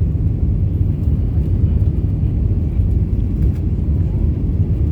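Steady low rumble of an Airbus A320 inside the passenger cabin: engine and airflow noise with no distinct bumps or changes.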